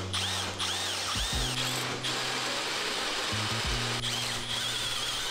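Cordless drill with a step bit boring through a small steel bracket, running steadily while the bit squeals and chatters in the metal in warbling high bursts.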